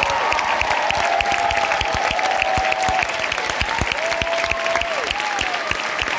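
Audience applauding and cheering: dense, steady clapping, with drawn-out whoops rising and falling over it.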